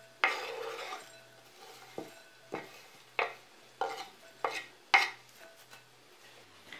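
A large kitchen knife sweeping shredded white cabbage off a wooden cutting board into a glass bowl. About seven short scrapes and taps of the blade on the board come in the first five seconds, some followed by the rustle of cabbage shreds landing in the bowl.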